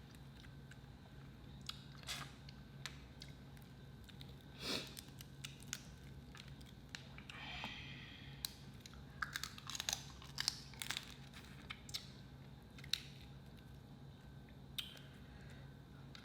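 Close-miked eating: quiet chewing with scattered small mouth clicks and smacks, over a faint steady low hum.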